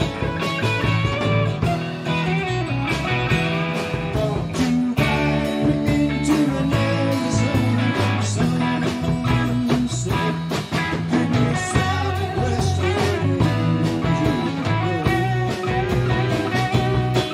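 A small band playing live: electric guitars, bass guitar and a drum kit, with regular drum hits under guitar lines in a mostly instrumental passage.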